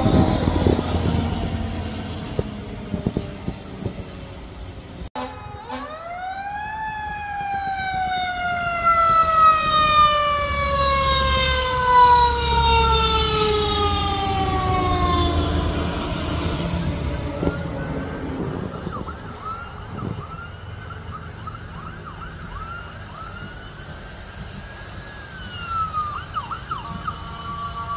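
Fire engine sirens on passing apparatus, over a low engine rumble. About five seconds in, a siren winds up sharply, then falls slowly in pitch for about ten seconds. A faster wavering siren follows.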